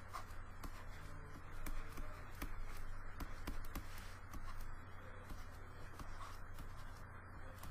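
Faint, irregular taps and light scraping of a pen stylus on a drawing tablet while sketching by hand, over a steady low hum.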